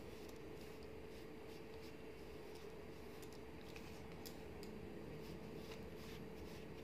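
Quiet room tone: a steady hum with scattered faint light clicks and taps.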